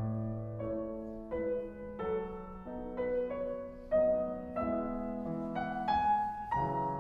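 Background music: a piano melody, one note after another.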